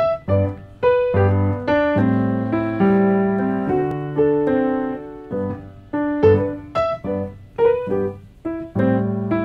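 Solo piano playing an introduction of struck chords and single notes, each ringing and fading before the next.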